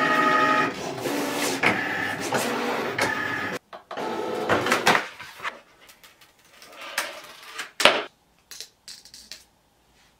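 Cricut Maker 3 cutting machine running as it cuts vinyl: its carriage and roller motors whine and buzz in steady tones that shift pitch with each move, then stop abruptly about three and a half seconds in. After that, adhesive vinyl crackles and rustles as it is peeled off its backing and handled, with a few sharp snaps near the end.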